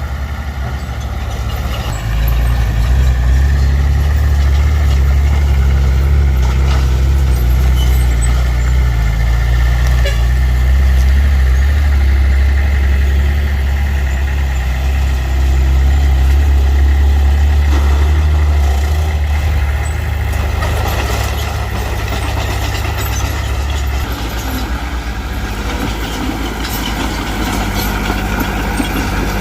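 Heavy earthmoving machine's diesel engine running steadily under load, louder from about two seconds in and easing off somewhat near the end.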